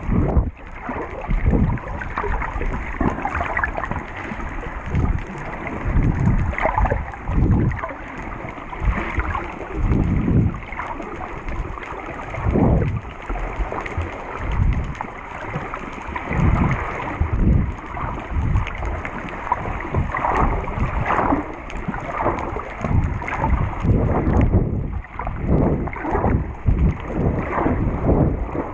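Muffled underwater water noise against a camera's waterproof housing, coming in uneven low surges about every second.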